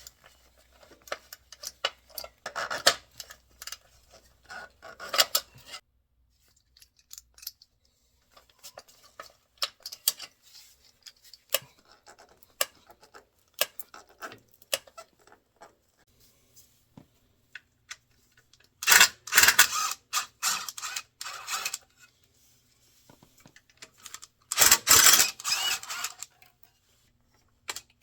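Hand tools and parts being handled while working under a motorcycle: scattered small metallic clicks and knocks, then two louder rustling, scraping bursts, one about 19 seconds in and one about 25 seconds in.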